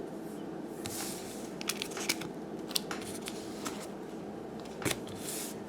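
Baseball cards being handled: scattered light clicks and rustles of card stock, the sharpest click a little before the end, over a steady low room hum.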